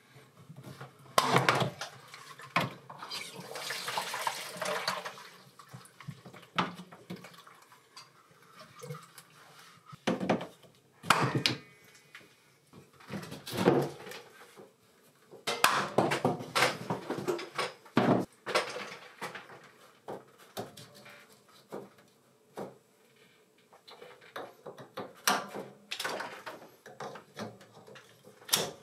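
Plumbing work on PEX water lines: the snap of a pipe cutter going through the pipe, a short rush of leftover water into a plastic bucket about three seconds in, and scattered clicks and knocks of tools and fittings being handled.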